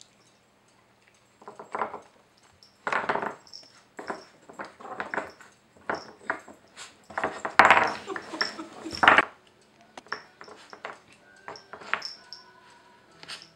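Wooden pieces of a Nina Ottosson Dog Fighter puzzle toy knocking and scraping against the board as a puppy noses and paws at the pegs and covers, in irregular bursts that are busiest and loudest about halfway through.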